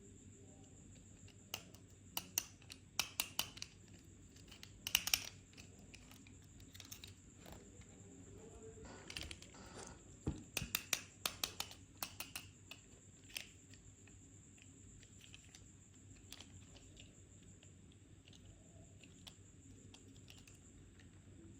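Toy car packaging being handled: scattered clusters of small plastic clicks and taps with brief crinkling, loudest in the first half.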